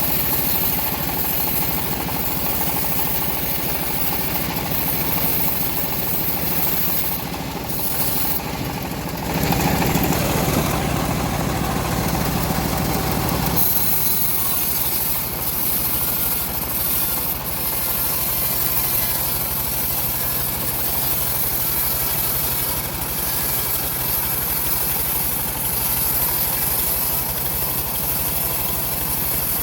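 Engine of a home-built bandsaw mill running steadily while sawing teak, louder and fuller for a few seconds from about nine seconds in.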